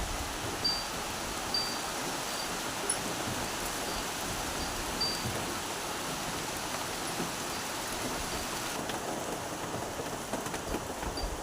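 Steady rain falling, heard as an even hiss. Short, high chirps repeat now and then in the first half and again near the end.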